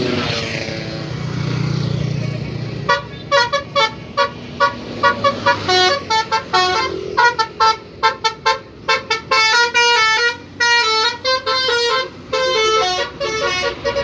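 Bus telolet horn, a Basuri multi-tone horn, playing a fast melodic tune of short tooting notes that jump between pitches. It starts about three seconds in, after a few seconds of steady vehicle engine noise.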